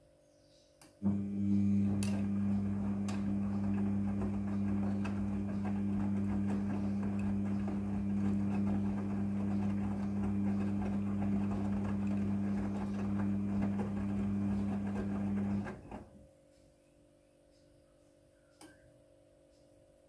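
Midea front-loading washing machine drum turning during the wash: a steady low motor hum with water and wet clothes sloshing in the drum. It starts suddenly about a second in and stops abruptly about 16 seconds in, as the drum pauses between turns.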